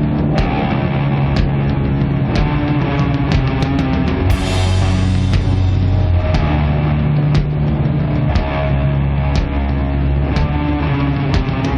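Slow, heavy doom metal music: long held low guitar and bass notes, with a sharp drum hit about once a second and a cymbal crash about four seconds in.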